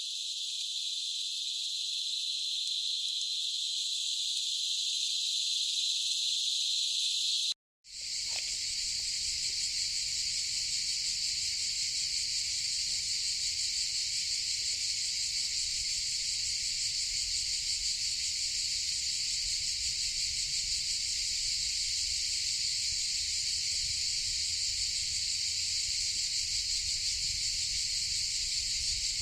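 Cicadas buzzing in a steady, unbroken high drone. About seven and a half seconds in, one recording cuts off, and after a short gap a second cicada chorus takes over with a faint low rumble beneath it.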